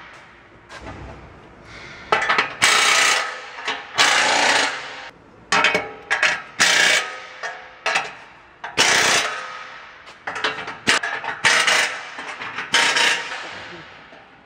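Metal tools and parts clanking and knocking: about a dozen irregular sharp strikes, each ringing briefly.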